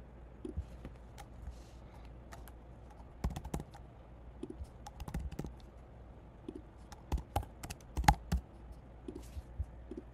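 Computer keyboard keystrokes and mouse clicks: scattered, irregular taps, with a denser, louder run of them about seven to eight seconds in.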